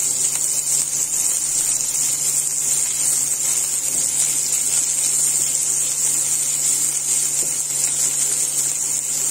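Chopped onions and green chillies sizzling steadily in hot oil in a nonstick pan, stirred now and then with a silicone spatula.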